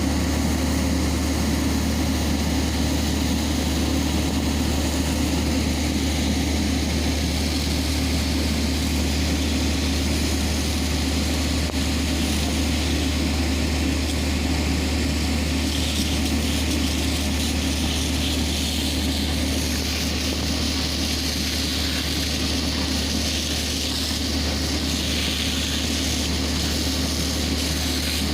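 Heavy diesel engine running steadily at a constant speed, a deep even drone that holds without revving.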